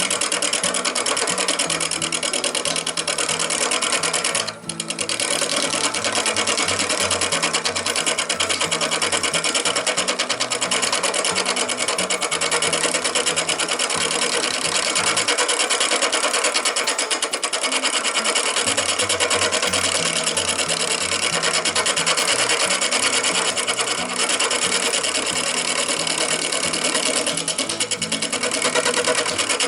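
Wood lathe spinning a workpiece while a turning tool cuts it, a steady dense scraping of wood being shaved away, broken off briefly about four and a half seconds in.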